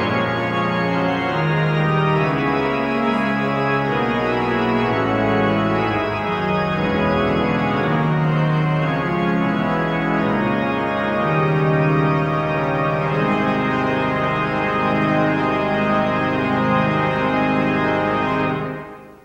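Pipe organ playing sustained chords of a hymn, cutting off about a second before the end.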